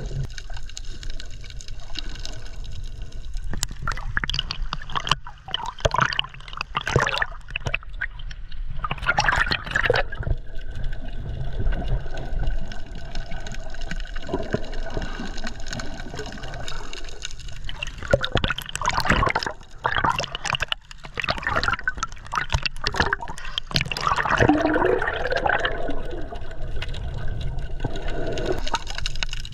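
Underwater water noise picked up by a snorkeller's mask-mounted GoPro: water sloshing and gurgling around the camera over a steady low rumble, with irregular louder bursts of bubbling every few seconds.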